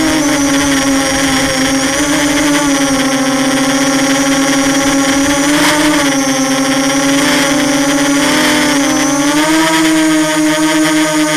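QAV250 quadcopter's electric motors and propellers whining steadily, heard close up from the onboard camera, the pitch wavering up and down as the throttle changes. A short click about halfway through.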